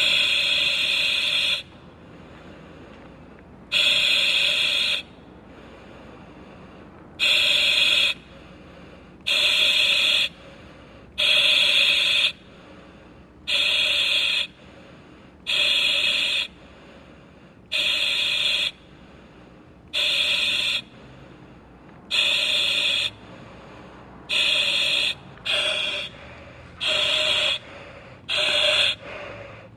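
Breathing through a hospital oxygen mask: a hissing breath about every two seconds over a steady low hiss, the breaths growing quicker and shorter in the last few seconds.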